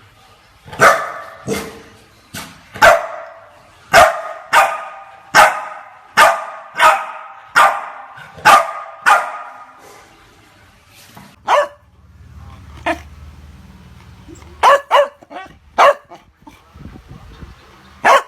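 Chow Chow dog barking: a steady run of single barks about one every 0.7 seconds for some nine seconds, then a pause and a few scattered barks, with a low rumble under the later ones.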